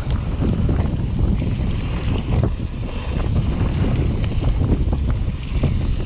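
Wind buffeting a GoPro Hero 7's microphone as a mountain bike rides fast down a dirt trail, with tyre noise and frequent clicks and knocks from the bike rattling over the rough ground.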